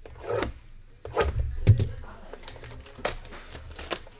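Cardboard trading-card boxes and packs being handled on a table: a handful of sharp taps and clacks with some rustling between them.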